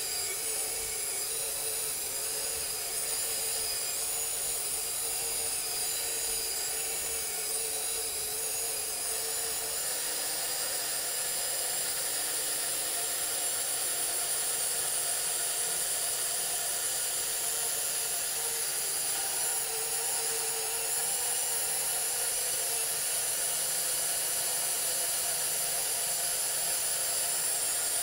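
1960s TN Nomura Moon Traveler Apollo-Z battery-operated tin toy running: its motor and built-in engine-sound mechanism give a steady high-pitched whir.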